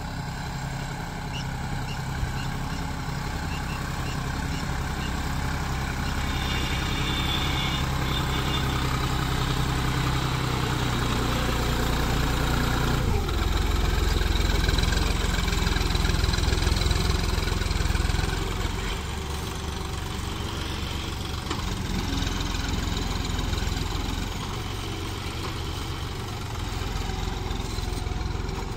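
John Deere 5050D tractor's three-cylinder diesel engine running under load as it pulls a tine cultivator through wet, muddy soil. Its note shifts about halfway through and grows louder for a few seconds before easing back.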